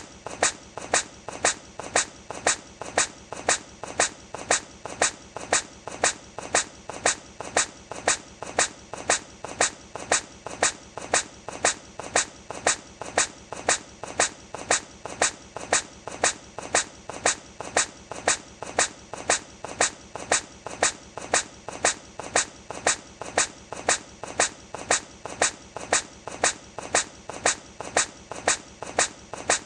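Hedgehog sneezing over and over in a loop: short, sharp sneezes at an even pace of nearly two a second, each with a softer sound just before it.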